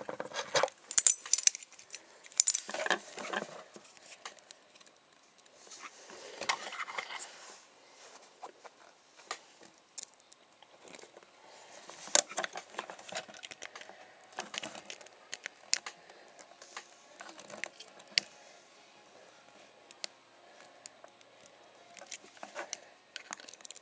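Brass Yale 50 mm padlocks and their keys being handled, with jangling and clinks in the first few seconds, then scattered small metallic clicks and scrapes as a lock pick and tension wrench work in the padlock's keyway.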